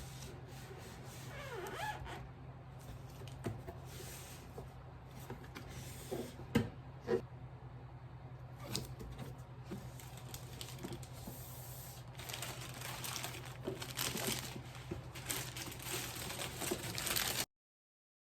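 Light taps, knocks and rustling from hands working with tools and materials over a steady low hum. The rustling gets busier near the end, then the sound cuts off suddenly.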